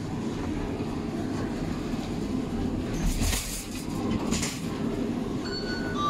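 Lift car noise: a steady low rumble, with two short hissing swishes about three and four and a half seconds in. A steady high beep starts near the end.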